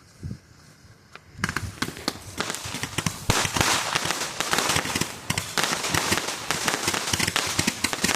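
Fireworks going off in a dense, rapid run of crackles and pops that starts suddenly about a second and a half in and keeps going without a break.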